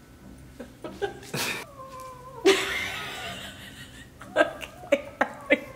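Pet cat hissing and growling at a dog: a drawn-out growl runs through the middle with a hiss about two and a half seconds in. A few short, sharp sounds follow near the end.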